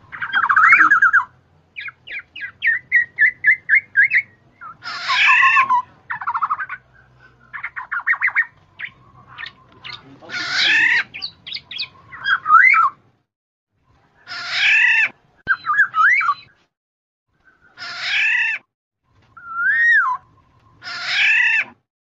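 Black-naped oriole (kepodang emas) calls from a bird-trapping lure recording: a run of short repeated notes early on, then a string of separate longer calls that rise and fall in pitch, each lasting about a second, with short pauses between them.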